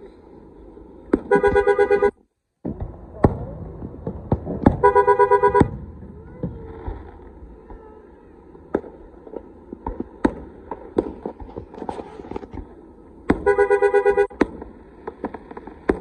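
Car horns honking in three blasts of about a second each, one near the start, one about five seconds in and one near the end, over scattered firework bangs and crackles. The sound cuts out for about half a second just after the first blast.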